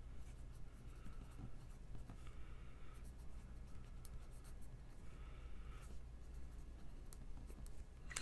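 A pen writing on paper: faint scratching in a few short spells with pauses between.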